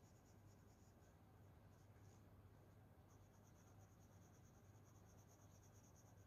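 Near silence: faint, quick scratching strokes of colouring on paper, steadier from about three seconds in, over a low steady hum.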